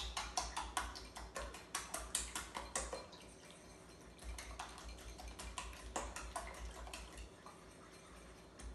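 A fork beating eggs and yogurt in a small bowl, a quick run of clinks against the bowl about four or five a second. It pauses for about a second near the middle, then resumes and thins out near the end.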